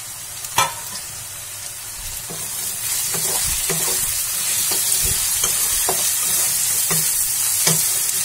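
Chopped onion, capsicum, garlic and ginger sizzling in hot oil in a kadhai while being stirred with a wooden spatula. A sharp knock comes just after the start; about three seconds in the sizzle grows louder, with the spatula scraping and tapping against the pan every half second or so.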